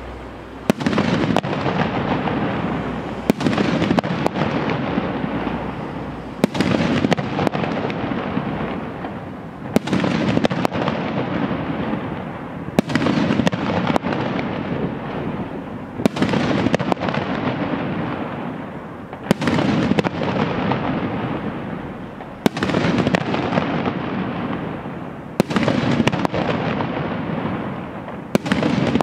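A 500-gram 12-shot consumer firework cake firing its aerial shells, which burst with loud reports about every three seconds. About ten bangs are heard, each followed by a long fading rumble.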